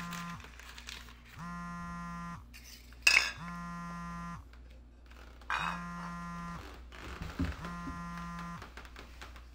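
Smartphone vibrating on a tile floor with an incoming call, buzzing and rattling against the tiles in even pulses of about a second, about two seconds apart. Two sharp knocks break in, the louder about three seconds in and another about five and a half seconds in.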